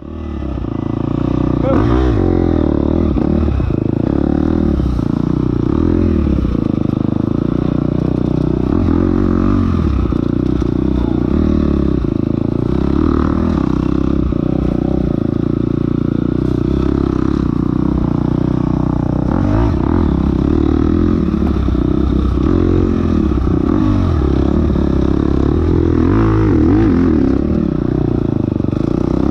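Enduro dirt bike engine running hard while the bike is ridden, its pitch rising and falling over and over with the throttle.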